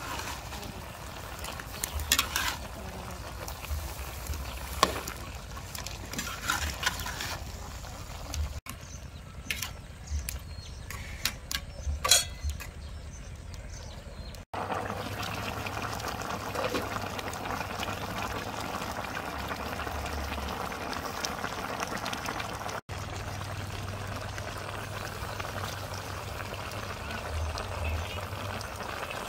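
Duck curry boiling in a metal wok over a fire: a bubbling hiss, with a few sharp clicks and pops in the first half, then a steadier hiss of simmering and steam from about halfway through.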